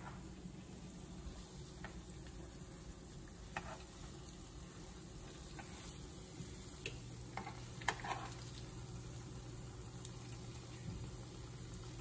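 Pancake-batter-coated Oreos frying in a pan of hot grease: a faint, steady sizzle, with a few light clicks scattered through it.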